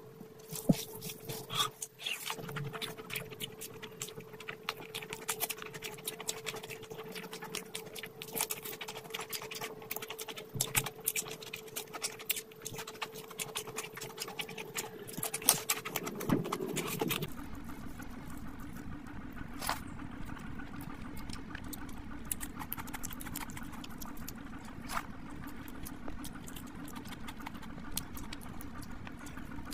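Close-miked eating sounds: wet chewing, lip smacking and fingers squishing through rice and curry, as many quick small clicks over a steady low hum. About 17 seconds in, the sound cuts to a different recording, with a lower hum and fewer, sparser eating clicks.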